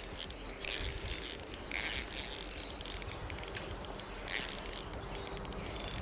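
Fishing reel ticking and whirring in short spells as a hooked trout is played on the line.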